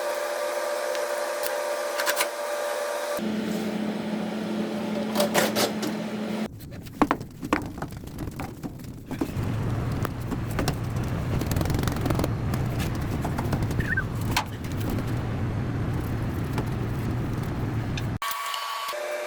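Beverage fridge's compressor compartment running with a steady mechanical hum, heard in several abruptly cut stretches of different pitch: a higher whine at first, a lower steady hum in the second half. A short run of clicks and knocks comes about a third of the way in.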